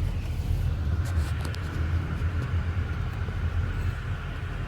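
Steady low rumble of a moving vehicle, with a faint steady whine and a few light ticks about a second in.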